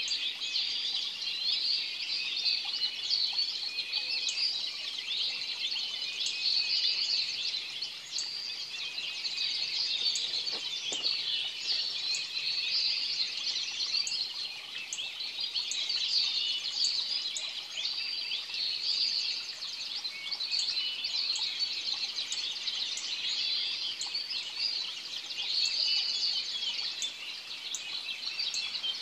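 Many birds singing at once in an early-morning chorus, a dense, unbroken tangle of overlapping chirps, trills and whistles. A thin high tick repeats about once a second over it.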